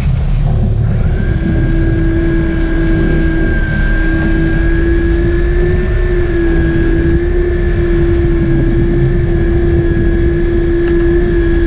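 Sportfishing boat's engines running with a steady low rumble, and about a second in a steady, slightly wavering whine starts and keeps going: a big-game trolling reel's drag screaming as a fish strikes and takes line.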